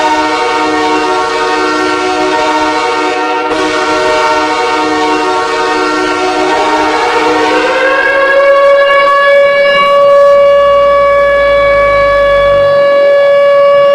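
Hockey arena goal horn blaring: a loud chord of several steady tones. About six and a half seconds in, the pitch slides up to one higher note that holds steady.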